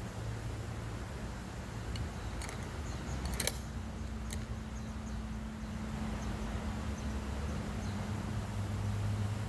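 A steady low hum with a few faint clicks and ticks between about two and four and a half seconds in, the strongest cluster a little past the middle; no rifle shot.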